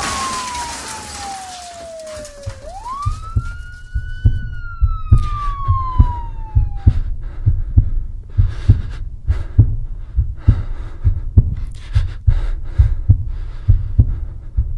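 Heartbeat sound effect, heavy double thumps at a steady pace of about one a second, starting about three seconds in, under a siren wail that falls, rises again and falls away. A burst of hiss at the very start.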